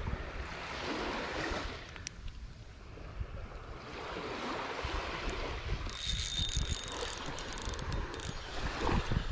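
Wind buffeting the microphone over small waves washing on a sandy beach, with gusts near the end. A brief high whirr comes about six seconds in.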